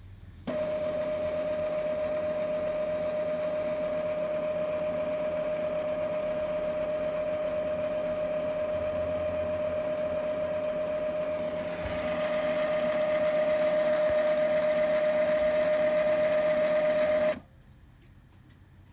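Epson L3150 ink-tank printer's mechanism running its power-cleaning cycle, flushing ink through the tubes and print head to clear clogged nozzles. It is a steady motor whine with one held tone, which grows louder and brighter about twelve seconds in and then cuts off suddenly.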